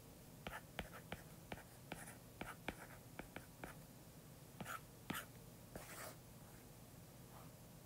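Faint stylus tip tapping and sliding on a tablet's glass screen while handwriting an equation: a quick run of light ticks for the first few seconds, then a few longer scratchy strokes.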